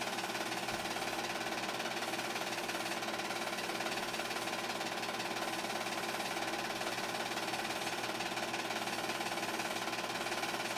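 8mm film projector running steadily: an even motor hum with a fast, regular clatter from the film-advance mechanism.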